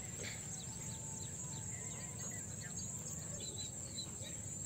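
Countryside ambience beside a pond: a steady high-pitched insect drone, like crickets, with scattered short bird chirps over a low rumble.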